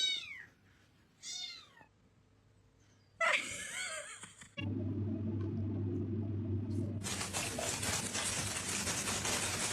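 A cat meowing: two short meows falling in pitch, then a louder, rougher cry about three seconds in. From about four and a half seconds a steady low hum takes over, with a steady hiss added from about seven seconds.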